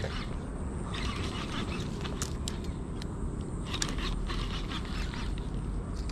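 Steady low wind rumble on the microphone, with intermittent duck-like calls and a few sharp clicks a little past the middle.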